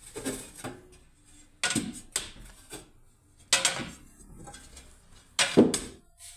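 Three loud clattering knocks of hard objects, about two seconds apart, with quieter handling noise between them.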